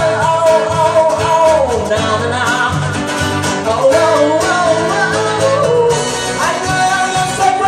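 A male singer performs a song live into a microphone over acoustic guitar accompaniment, his sung line rising and falling continuously.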